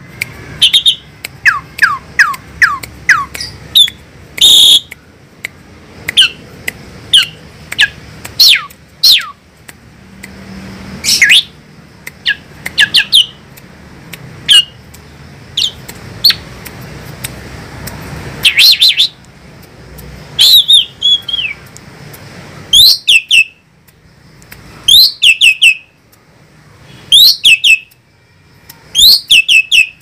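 Javan pied starling calling loudly: a string of sharp, high whistled notes, each sweeping steeply down in pitch, given singly at first and later in quick clusters of three or four about every two seconds.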